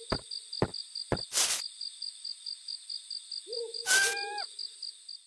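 Night ambience: insects chirping in a steady, pulsing high trill while an owl gives a low hoot about three and a half seconds in. A few sharp clicks sound in the first second and a short hiss comes at about a second and a half, and everything cuts off suddenly at the end.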